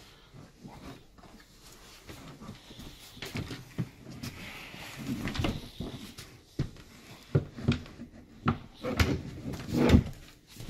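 Irregular knocks and thumps of a sofa bed's wooden seat frame being handled and hooked onto its fittings, louder near the end.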